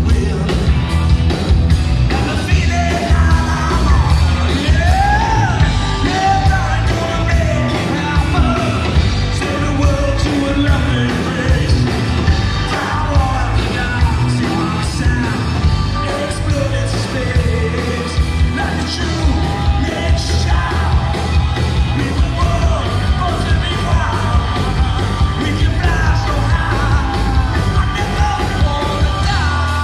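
Live rock band playing a song: drum kit keeping a steady beat under electric guitar and bass, with a lead vocal sung over them.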